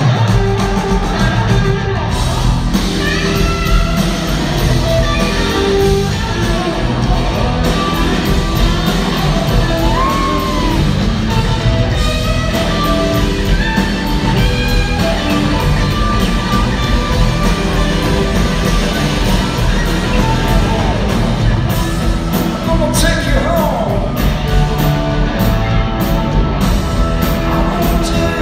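Live rock band playing loud and steady, with several electric guitars, a regular drumbeat and a singing voice, heard from the audience in a large hall.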